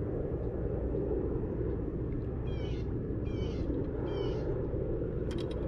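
A bird calls three times, in short harsh calls less than a second apart, over a steady low background rumble. A few sharp clicks come near the end.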